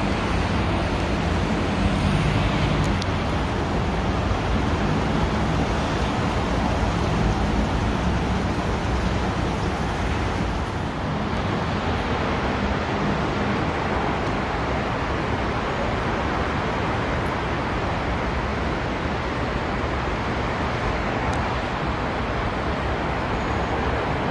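Steady background rumble of a busy rail station. A low machine hum from the escalator runs under it for roughly the first ten seconds, then fades.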